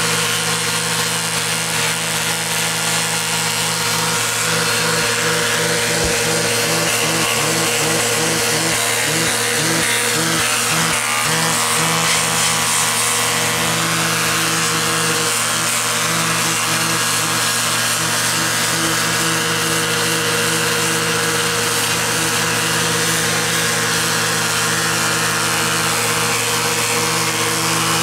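Vacuum cleaner running steadily with a Flowbee vacuum haircutter's clippers buzzing as it sucks up hair and cuts it to length. The sound turns choppy and flutters for several seconds in the first half.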